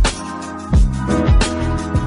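Background music: sustained chords over a deep, regular kick drum about every three quarters of a second.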